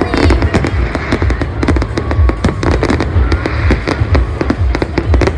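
Fireworks going off in a dense barrage: rapid sharp cracks and bangs one after another over a steady low rumble.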